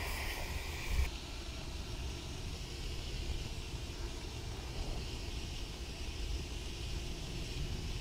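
Air hissing into the open end of an underground conduit under a vacuum's suction, cut off abruptly about a second in with a soft bump as the plastic-bag mouse on its pull string is sucked into the pipe and seals it. After that only a low, steady rumble remains.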